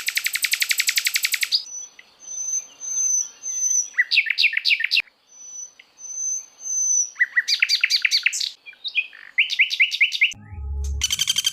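Recorded songbird song played as a masteran mix: a fast, rattling trill, then several short runs of quick down-slurred notes with a thin, high whistle repeating between them. Near the end a low rumble comes in with another fast trill.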